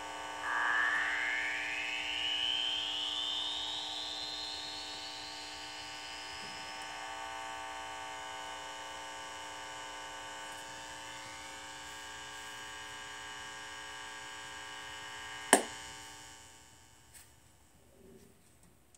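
Heathkit T-3 signal tracer's speaker putting out a steady hum rich in harmonics, with a whistle that rises in pitch over the first few seconds. The owner believes the harmonic noise comes from the high-gain input being left with no load. A sharp click comes near the end, after which the hum drops away to almost nothing.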